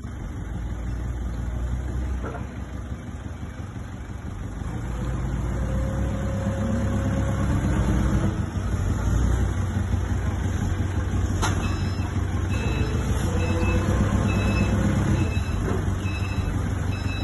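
Caterpillar DP30N diesel forklift engine running, revving up with a rising pitch a few seconds in and again later as the truck works. Near the end a reversing alarm beeps steadily at a regular pace, and there is a single sharp click about halfway through.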